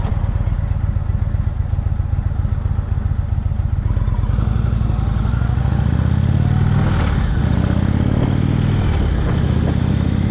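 Cruiser motorcycle engine pulling away at low revs out of a turn, then accelerating, its pitch rising and stepping as it speeds up, with wind rushing past.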